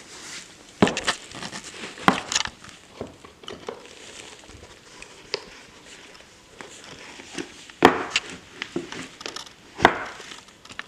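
Handling sounds of black leather dress shoes being pulled on and laced: irregular rustling and crinkling, with a few sharp knocks scattered through.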